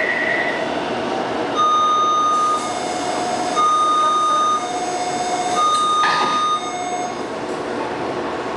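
Metro door-closing warning chime: a high and a low tone alternating, about a second each, repeated three times over the steady hum of the train car. A short rush of noise comes around the third high tone.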